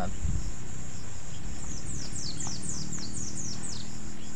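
Steady high drone of insects, with a bird calling a quick run of about ten falling notes in the middle, over a low rumble.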